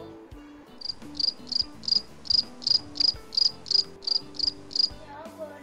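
Cricket chirping sound effect: about a dozen evenly spaced high chirps, roughly three a second, starting about a second in and stopping near the end.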